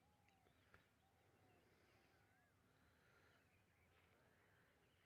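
Near silence, with very faint bird chirps now and then.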